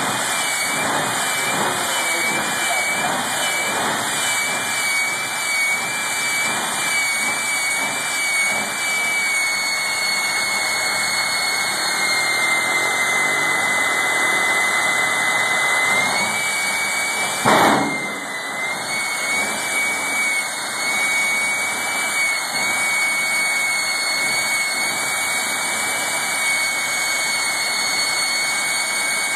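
Jet turbine of a jet-powered Kenworth semi drag truck running while the truck sits at the line: a steady high-pitched whine over a constant rushing roar. There is one sharp bang about seventeen seconds in.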